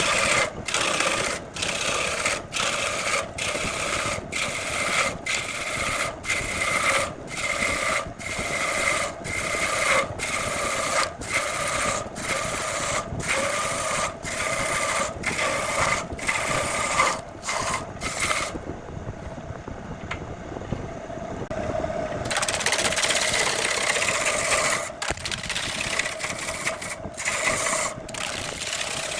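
Wood lathe running, with a turning tool cutting jackfruit wood: a steady motor tone under a scraping hiss that breaks off briefly about once a second. From about two-thirds of the way in, the cutting stops for a few seconds and only the lathe's hum remains, then the cutting resumes.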